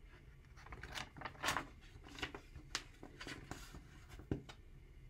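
Pages of a picture book being turned and handled: a run of paper rustles and scrapes with a few sharp clicks, ending in a sharp tap near the end.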